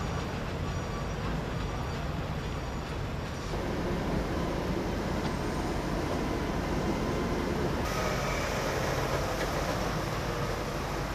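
Heavy vehicle engines, from a tractor and an armoured police vehicle, running as a steady low drone. After about three and a half seconds this gives way to general outdoor background noise, which turns brighter and hissier about eight seconds in.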